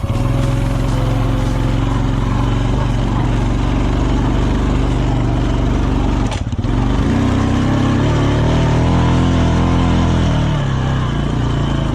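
A motor vehicle's engine running steadily; after a brief dip about six seconds in, its pitch climbs for a few seconds as it speeds up, then drops back.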